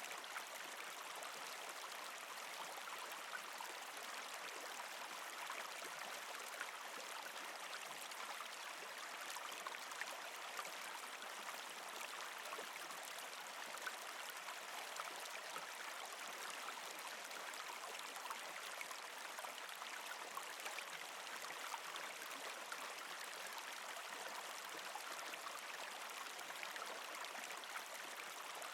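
Mountain stream babbling over rocks: a steady rush of flowing water with small splashes throughout.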